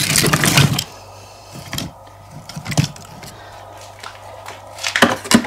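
Firewood logs being pulled from a woodpile: a short scraping clatter at the start, a few light knocks, and another clatter of wood near the end.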